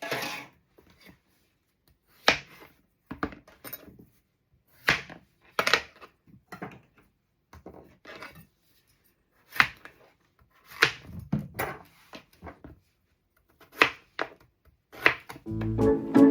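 Kitchen knife chopping vegetables on a chopping board: single sharp knocks at an irregular pace, about one every second, with pauses between. Music with brass comes in near the end.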